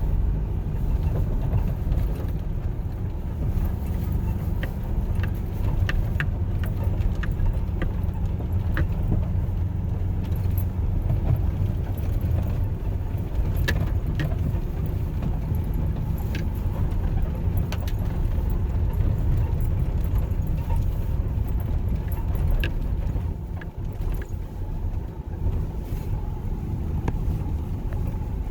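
Steady low engine and road rumble heard inside a truck's cab while driving, with scattered light clicks and rattles.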